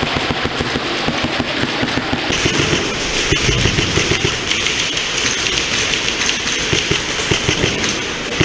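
Airsoft guns firing rapidly during a speedsoft match: many overlapping shots in a constant crackle. The sound gets brighter about two seconds in.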